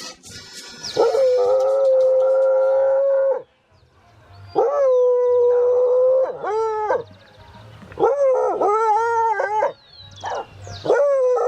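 A dog howling: a series of long drawn-out howls, the first ones held on one steady pitch, the later ones wavering up and down.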